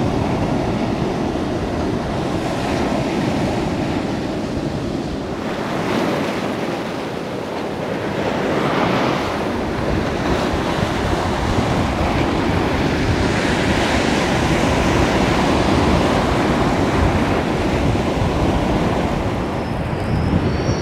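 Sea waves breaking and washing over a rocky shore on a flooding tide, with wind blowing. The surf swells and eases in surges every few seconds.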